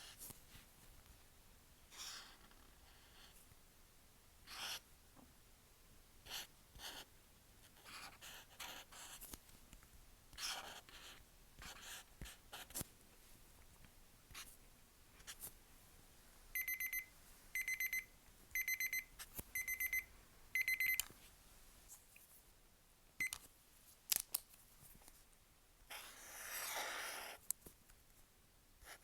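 Paint marker tips scratching over paper in short strokes, with one longer scribbling stroke near the end. About two-thirds of the way in, a timer alarm sounds four bursts of rapid beeps, the loudest sound here; it marks the end of the time limit.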